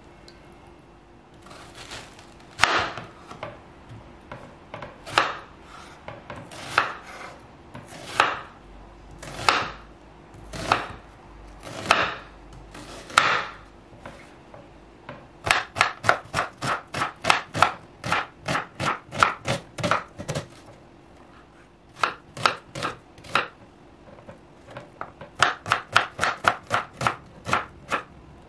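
Kitchen knife cutting an onion on a wooden cutting board. Slower single cuts come about one a second at first, then quick runs of chops at about three a second, with short pauses between them.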